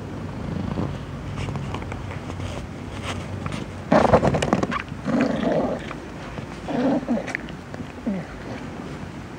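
Domestic cat purring, then giving three or four short moaning whimpers. The loudest comes about four seconds in, and the last glides downward in pitch.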